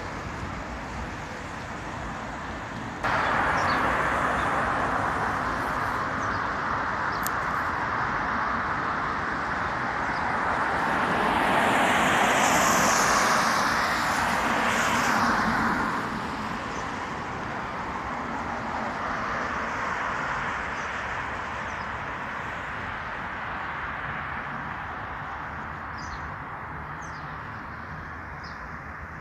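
Road traffic noise beside a multi-lane road: a steady hiss of tyres and engines that jumps louder about three seconds in, then a vehicle passing close, growing louder and fading away about halfway through.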